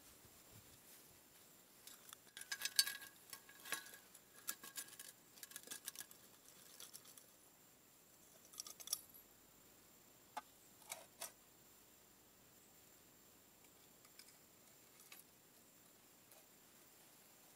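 Metal jewellery chains and a steel spade blade clinking and jingling, a quick run of small metallic clicks for a few seconds, then a few single clicks spaced apart.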